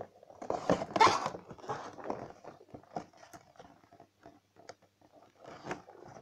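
Cardboard and plastic toy packaging being handled: crackly rustling and scraping, loudest in the first two seconds, then scattered clicks and a short rustle near the end.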